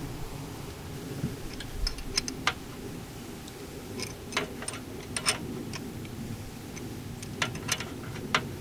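Scattered light metallic clicks and clinks of hardware and hand tools being handled inside a pole-mounted distribution transformer's tank, irregularly spaced, over a steady low background rumble.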